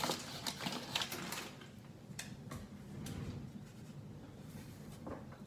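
Scattered faint clicks and light knocks of kitchen handling: utensils knocking in a drawer as a rolling pin is fetched, and a hand patting flour onto a wooden worktop.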